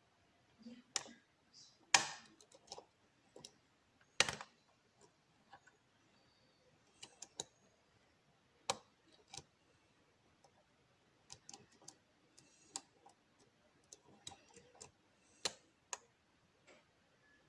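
Lock pick and tension wrench working the pins of a pin-tumbler challenge lock: scattered small metallic clicks and ticks, with two louder clicks about two and four seconds in.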